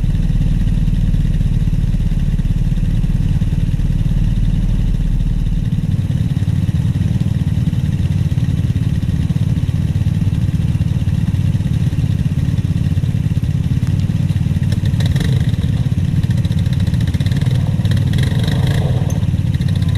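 Off-road vehicle engine idling steadily close by, a low rumble whose deepest part drops away about six seconds in.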